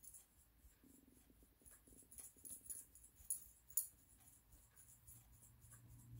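Faint small clicks and taps of a diamond-painting drill pen and fingertip setting and pressing round diamond drills onto the canvas, with two sharper taps about three and a half seconds in.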